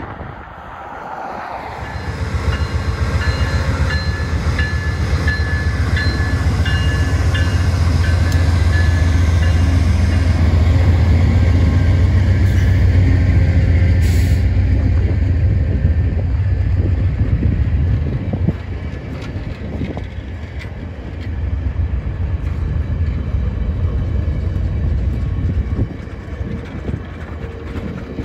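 VIA Rail passenger train's stainless steel coaches rolling past at a platform with a heavy low rumble of wheels on rail. A few steady high tones ring over the rumble in the first half, and the sound eases off in the last third as the cars keep passing.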